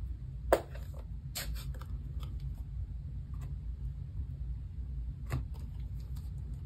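Plastic ink pad case being handled and its pad dabbed onto a stamp mounted on an acrylic block: two sharp clicks about a second apart near the start, then scattered faint taps and one more click later, over a low steady hum.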